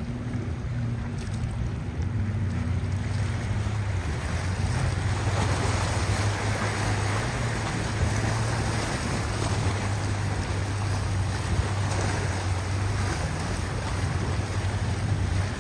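A large motor yacht's engines drone steadily as it runs away through choppy sea. Under the drone is a hiss of wind and waves that grows louder about four seconds in.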